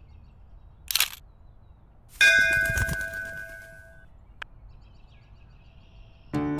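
A temple bell struck once, ringing with several clear steady tones that fade away over about two seconds. A brief swish comes a second before it, and faint birdsong is heard. Music begins right at the end.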